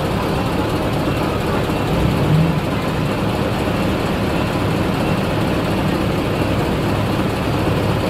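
Heavy diesel engine of earthmoving equipment running steadily, with a brief louder surge about two seconds in.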